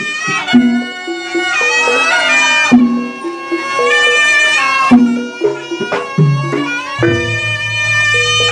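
Slompret, the Javanese double-reed trompet, playing a sliding, wavering melody over live gamelan accompaniment of short repeated low notes, with a deep low note held near the end.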